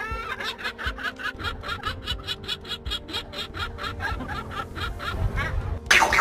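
Parrot giving a fast, even run of short calls, about five a second, with a sudden louder sound near the end.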